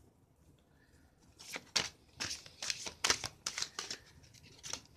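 Goddess Guidance oracle card deck being shuffled by hand: a string of short papery swishes and slaps, about two or three a second, starting about a second and a half in.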